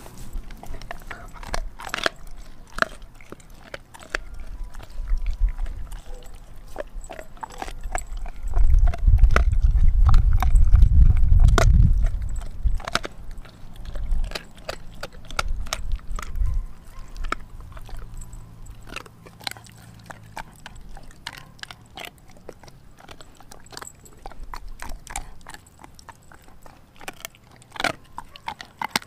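Doberman gnawing a frozen raw pig's foot: irregular clicks and crunches of teeth on meat and bone. A loud low rumble lasts a few seconds around the middle.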